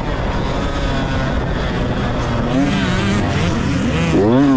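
Dirt bike engine heard on board, revving up and down with the throttle, its pitch climbing sharply near the end, over a steady rushing noise.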